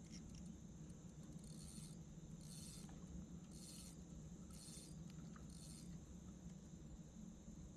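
Night insects calling: a raspy high chirp repeated about once a second, five times, over a steady high insect whine and a faint low hum.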